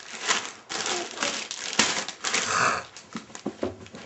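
Plastic packets of Lego pieces being handled, rustling and crinkling in a quick, irregular run of crackles.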